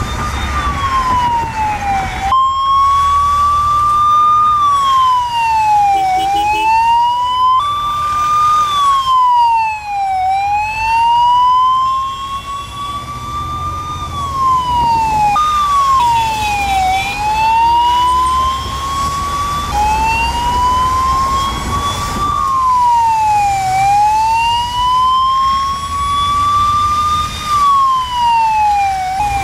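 Emergency vehicle siren wailing, its pitch rising slowly and then falling more quickly, over and over, with a few abrupt jumps in the sweep, over the low rumble of traffic.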